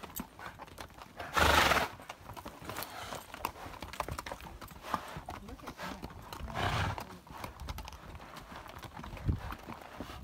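Hooves of riding mules clip-clopping unevenly on a dirt and rock trail as a string of mules walks past close by. A loud rushing burst of noise comes about a second and a half in, and a shorter, weaker one comes near seven seconds.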